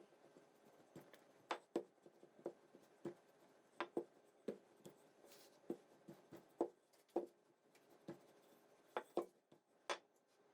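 Soft, irregular taps and light scrapes, roughly two a second, of hands and utensils working pastry dough on a kitchen counter.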